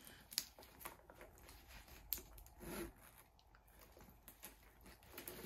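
Faint handling sounds of a small leather shoulder bag being opened and looked into: a few light clicks and taps, the sharpest about half a second and two seconds in, with soft rustling between.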